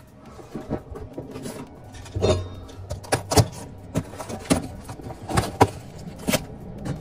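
Cardboard boxes of spray paint cans being handled and lifted out of a divided shipping carton: irregular knocks, scrapes and clinks of cardboard and metal cans.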